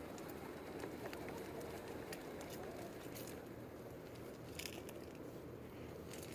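Faint footsteps on a fall trail: scattered, irregular crackles and crunches over a steady low rumble.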